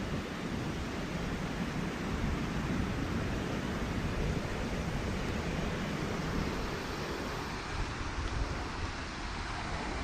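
Steady rush of a fast-flowing river, mixed with wind buffeting the microphone in gusts.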